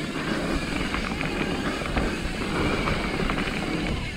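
Mountain bike riding fast down a dirt trail, heard from a bike-mounted or rider-worn camera: a steady rush of tyre and wind noise with a low rumble on the microphone, broken by frequent rattles and knocks from the bike over bumps.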